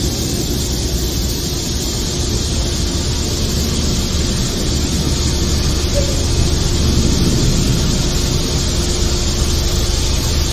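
A steady low mechanical rumble with a constant hum and a hiss over it, running without change.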